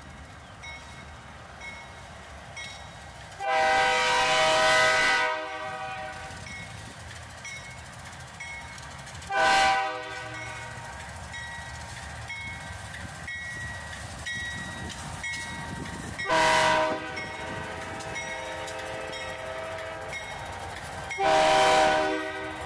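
Locomotive multi-chime air horn sounding four blasts (long, short, short, long), spread several seconds apart over the steady rumble and clatter of a passing train.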